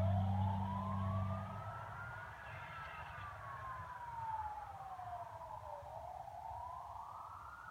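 Fire engine siren on a slow wail, rising and falling in pitch, growing fainter as the truck moves off. A loud low steady drone underneath stops about a second and a half in.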